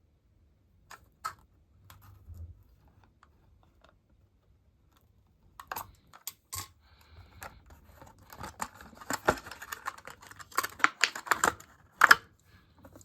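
Plastic blister packaging of a Hot Wheels die-cast car clicking and crackling as it is handled and opened: a few scattered clicks at first, then a denser run of crackles that is loudest near the end.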